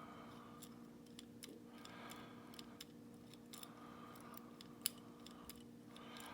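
Faint, irregular metallic clicks of lever-lock picking tools working inside a Legge Insurance 5-lever padlock, with one louder click about five seconds in, over a steady low hum.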